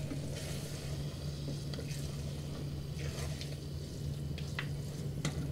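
Green silicone spatula stirring and scraping thick sugary cracked-wheat porridge in a stainless-steel pressure-cooker pot over low heat. A faint sizzle runs throughout, with a few light taps of the spatula on the pot in the second half, over a steady low hum.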